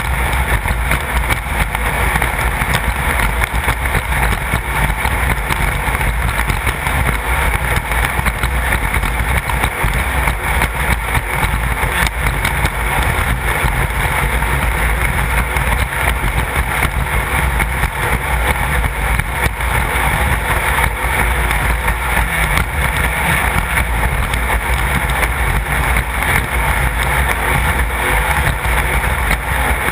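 Class 1/2-1600 off-road race car's air-cooled 1600 cc Volkswagen engine running steadily, loud and even, with no clear rise or fall in pitch or level.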